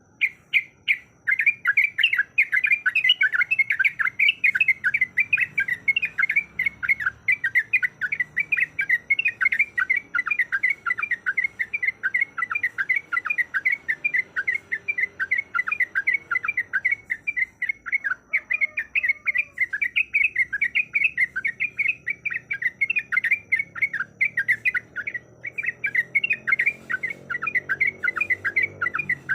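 Yellow-vented bulbul (trucuk) calling: a fast, continuous chatter of short notes with only brief breaks, the kind of call used as a lure to provoke a caged bulbul into singing.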